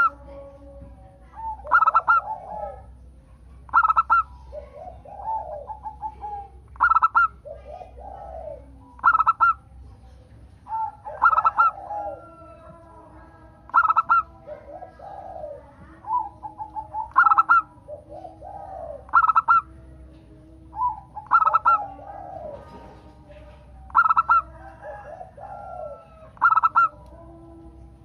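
Zebra doves (perkutut) cooing in repeated phrases. A loud, sharp burst of notes comes about every two seconds, with softer, lower coos from other birds in between.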